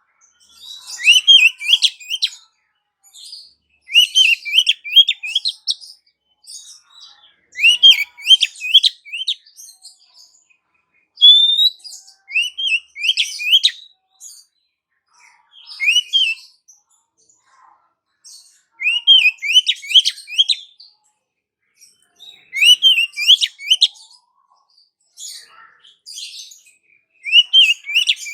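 Female oriental magpie-robin (kacer) calling to a male: about eight short phrases of quick, rising chirps, one every three or four seconds, with brief pauses in between.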